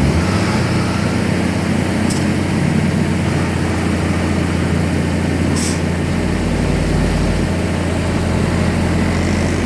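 Truck engine running steadily with a deep, even hum, with a couple of brief clicks partway through.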